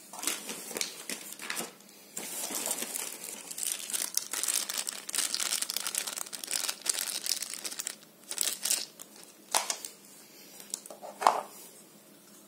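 Small clear plastic bags of motorcycle handguard mounting hardware crinkling and rustling as they are handled, with a sharp knock near the end.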